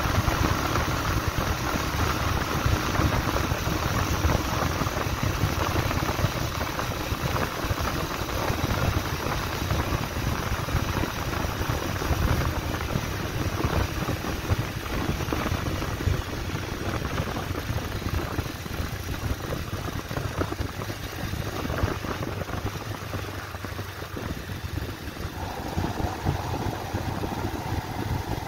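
Bajaj Pulsar 150's single-cylinder engine running steadily at cruising speed, heard from on the bike with wind and road noise, easing a little in the last few seconds as it slows. A steadier mid-pitched tone joins near the end.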